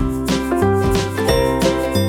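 Background music: a bright, tinkling tune with a steady beat and bass.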